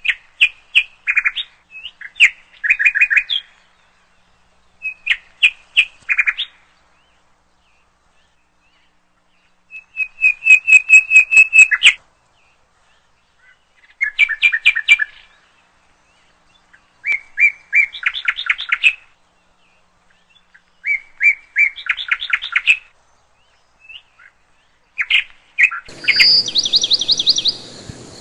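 A songbird singing a series of short trilled phrases of rapidly repeated high notes, with gaps of a second or two between them. Near the end a steady background hiss comes in under a louder, higher phrase.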